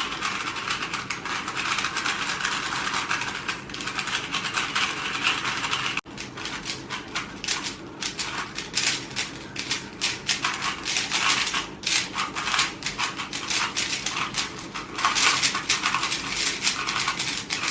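Plastic speed cubes being turned fast by hand: a dense, irregular run of clicking and clattering, broken by a sudden brief gap about six seconds in.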